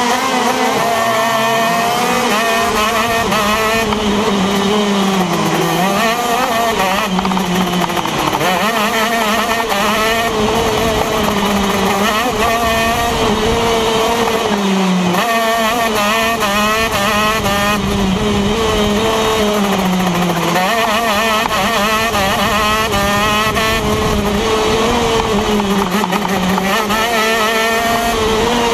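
TM KZ10 125 cc two-stroke shifter kart engine at high revs, heard from on board while racing. Its pitch dips sharply several times as the kart slows, then climbs back as it accelerates.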